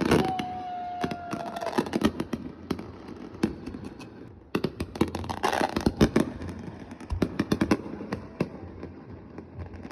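New Year's fireworks going off: a dense string of sharp bangs and crackles that comes in clusters, loudest about halfway through. A faint, slightly falling whistle sounds over the first second or two.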